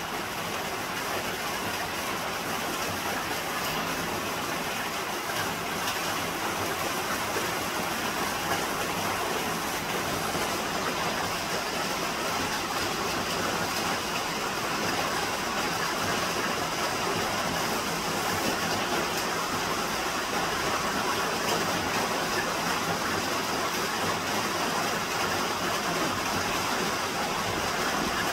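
Steady rain falling through tree foliage, an even hiss of drops on the leaves.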